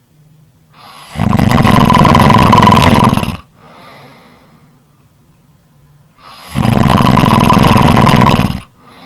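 Snoring: two long, loud snores of about two seconds each, the first about a second in and the second near the end, with quieter breathing between them.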